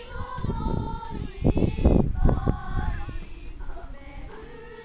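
A group of schoolchildren singing together unaccompanied, holding long notes. Low rumbling gusts of wind on the microphone, loudest about two seconds in, partly cover the voices.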